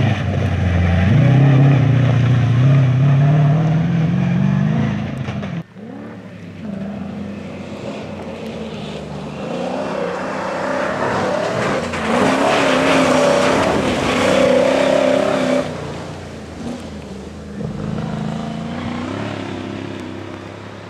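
Rally vehicles' engines revving hard on gravel stages in several short clips: an old truck's engine climbs in pitch as it accelerates, cut off suddenly about five seconds in, then another engine revs up and down through its loudest stretch in the middle and runs more quietly near the end.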